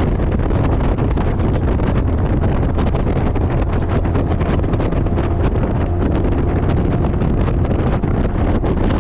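Heavy, steady wind buffeting on the microphone at riding speed, with the exhaust of a Yoshimura Slip-On Oval Cyclone muffler running under it.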